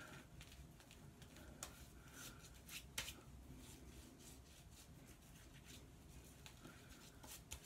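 Near silence, with a few faint, short rubbing and squishing sounds as shaving lather is spread over the cheeks and chin with the fingers.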